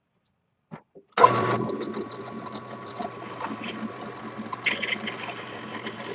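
A small electric power tool switched on with a click about a second in, its motor then running steadily with a constant high hum and a rattling, chattering texture.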